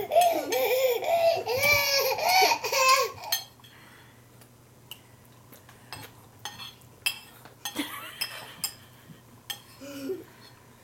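A toddler laughing in a run of high-pitched giggles for about three seconds. Then come scattered light clicks and knocks of dishes on her high-chair tray as she eats, with a short small vocal sound near the end.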